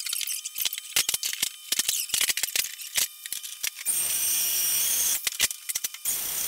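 Steel tubing and flat bar clanking and rattling as the pieces are handled on a bench. Then a portable band saw cutting the steel runs in two short bursts, about four seconds in and again near the end.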